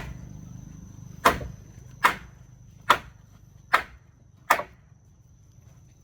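Six hard hammer blows on timber, roughly one every 0.8 s, driving the joints of a wooden house frame together. A steady high insect buzz runs underneath.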